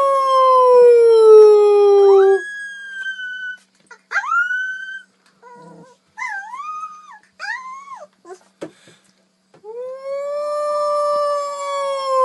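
Puppy howling: a long call that falls slowly in pitch and ends about two seconds in, then a few short rising yelps and whines, then another long, falling howl that begins near the end.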